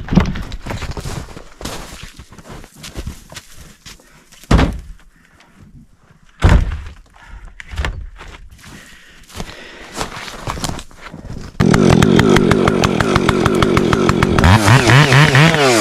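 A few scattered knocks and thuds, then a two-stroke Husqvarna professional chainsaw comes in suddenly about twelve seconds in, running loud and steady. For the last second or so it revs up and down.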